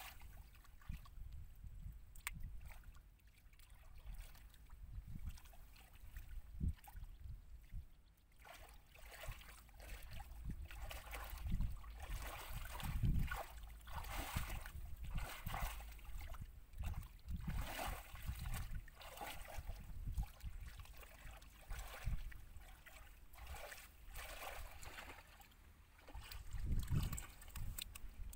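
Hands and bare feet sloshing and squelching in shallow muddy water while feeling for fish: irregular splashes, sparser for the first several seconds and busier after, over a low rumble.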